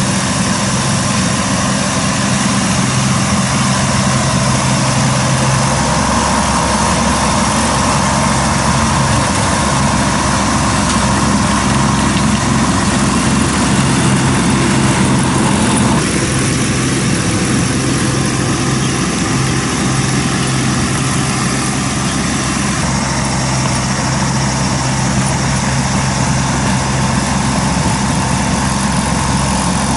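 Engine of a KANEKO hammer-knife crawler mower running steadily under load as it cuts through weeds, with a continuous rushing noise over the engine note.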